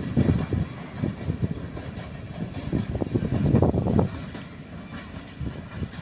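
Passenger train running away down the line, its wheels clattering over the rails in an irregular low rumble that fades toward the end.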